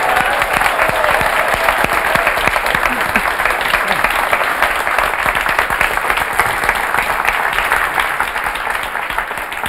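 Studio audience applauding, a dense steady clapping that begins to taper off near the end.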